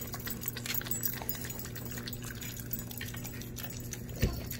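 A dog licking and eating pumpkin purée off a plate, with a run of small wet clicks and smacks. A single dull thump comes near the end.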